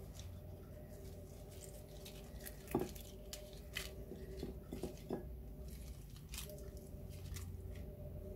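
Lettuce leaves rustling and crinkling as hands lay them onto a china plate, with scattered soft clicks and one sharper click a little under three seconds in. A faint steady hum runs underneath.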